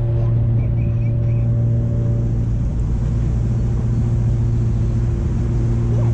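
Jet boat's twin 496-cubic-inch V8 engines running at a steady pace, a low even drone.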